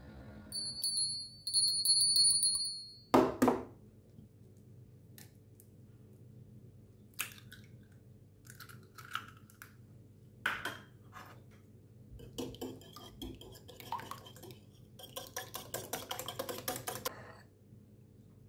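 A high, pulsing ringing in the first few seconds, then a loud knock. After that come scattered taps and clinks on a ceramic bowl as an egg is prepared, and near the end a wire whisk beats the egg against the bowl in quick strokes.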